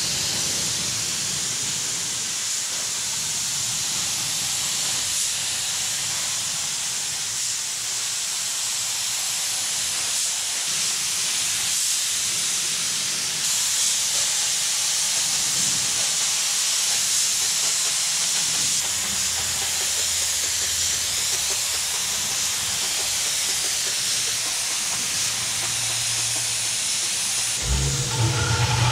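Paint spray gun hissing steadily with compressed air as primer is sprayed over the bare and etch-primed refrigerator body. About a second before the end, a steady low hum starts.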